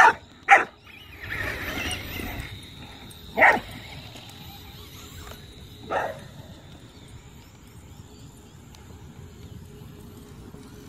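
Young pit bull barking, four single barks spread over several seconds, the last one weaker. Between the second and third barks there is a noisy rush lasting about a second.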